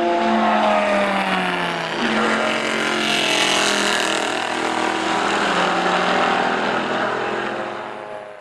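Panoz Esperante GTR-1's 6-litre Ford/Roush pushrod V8 racing engine running loud. Its pitch falls over the first two seconds, steps at about two seconds, then holds steady before fading out near the end.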